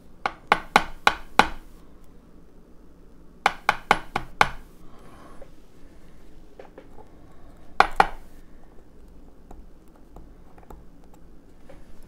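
Sharp metal-on-metal taps of tweezers against a Mul-T-Lock cylinder, working to knock the pins out while gutting the lock. They come in two quick runs of about five taps each, a few seconds apart, then a pair of taps later.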